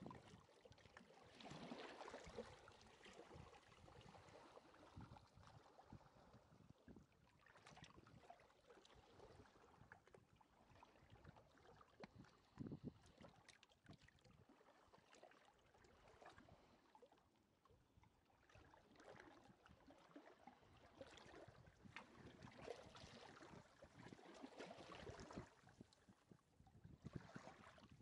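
Small sea waves lapping on a beach shore, faint, each wash swelling and fading over a few seconds with a fizzing crackle as the water breaks and runs back.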